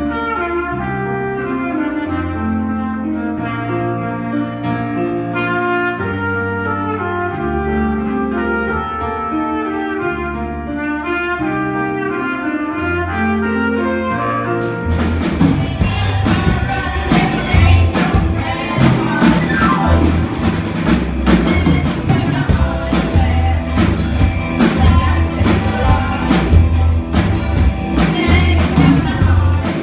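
A trumpet plays a melody over piano accompaniment. About halfway through it cuts abruptly to a rock band with a drum kit, electric guitars and a boy singing.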